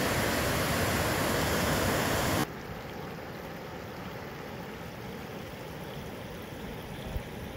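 Whitewater river rapids rushing, a loud steady wash of water that stops abruptly about two and a half seconds in, leaving a much quieter steady hiss.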